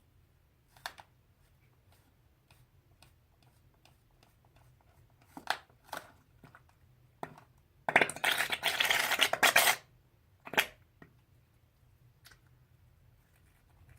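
Handling of slime-making materials and containers: scattered light clicks and taps, then about two seconds of loud dense crackling about eight seconds in, followed by one sharp tap.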